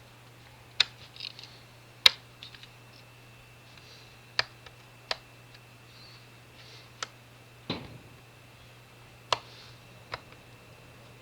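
Sharp, irregular clicks and taps of a small screwdriver and small model parts being handled while a screw is worked at a hole it won't go into.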